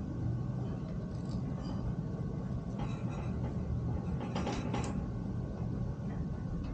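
Metal parts of a folding three-burner camping stove clicking and clattering as they are handled and fitted together, in two short bursts about three seconds and four and a half seconds in, over a steady low rumble.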